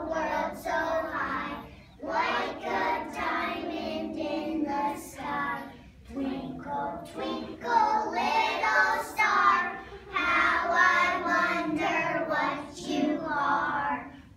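A small group of young children singing a song together in unison, in phrases with short breaths about every four seconds.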